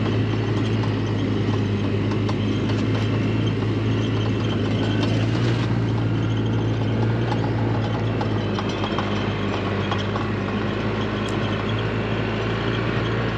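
Vehicle engine running steadily at low speed, a constant low hum under rumbling road and wind noise.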